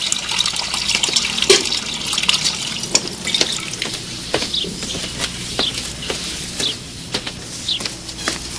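Water trickling and dripping, with sharp drip-like plinks scattered throughout.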